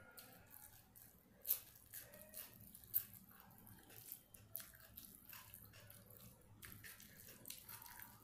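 Rice and curry being eaten by hand: irregular wet, sticky squelches and clicks as fingers work the curry-soaked rice, with two sharper clicks about a second and a half and three seconds in.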